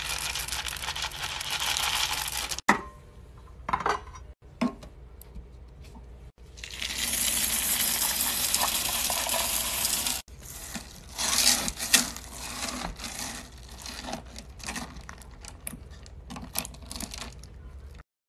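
Hard wax beads poured into a metal wax-warmer pot, a steady pour lasting about four seconds midway. Around it are short stretches of a wooden spatula stirring and scraping thick melting wax in the pot, with a few sharp knocks.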